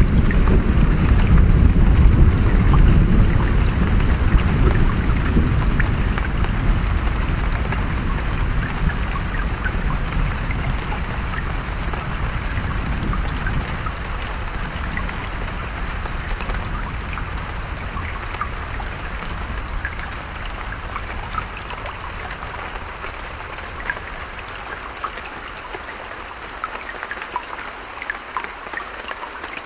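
Steady rain with individual drops pattering, under a low roll of thunder that is loud at first and slowly dies away over the stretch.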